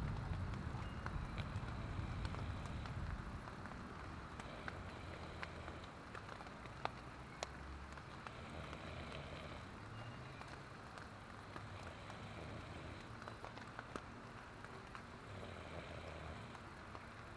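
Light rain pattering on a tent, with scattered sharp drop ticks over a faint steady hiss. A low rumble fades away over the first few seconds.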